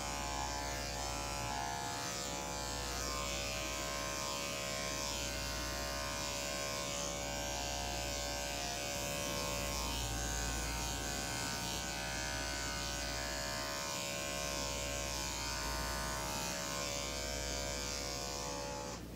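Electric dog grooming clipper with a #5 blade running with a steady hum as it cuts through a West Highland White Terrier's coat on the side of the neck and shoulder; the hum stops near the end.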